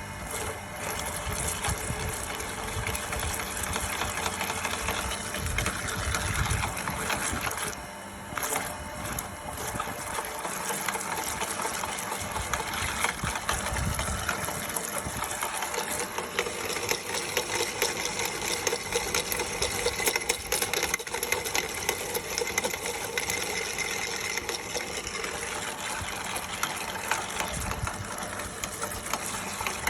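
Meat grinder motor running steadily while cucumbers are fed through and ground, with a brief dip about eight seconds in.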